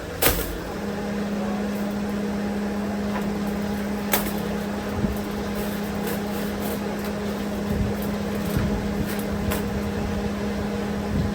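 Factory machinery running with a steady electrical hum that comes on about a second in, over a constant mechanical noise, with a few sharp clicks or knocks, the loudest just after the start.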